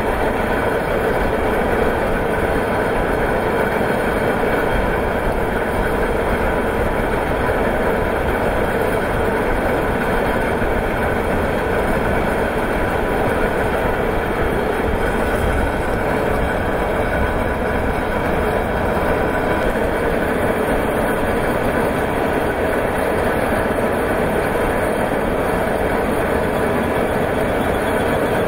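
Large iron ore belt conveyor running, a loud, steady rumble that stays even throughout.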